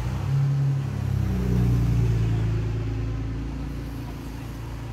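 A motor vehicle's engine driving past on the street, swelling to loudest about two seconds in and then fading away.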